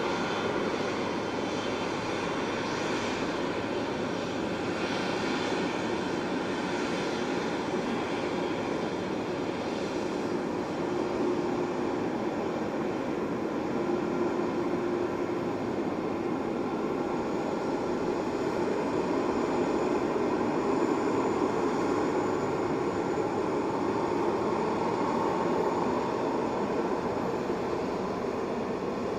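Boeing 777-200ER's twin GE90 turbofan engines running, a steady jet rush with faint whining tones that swells a little in the second half.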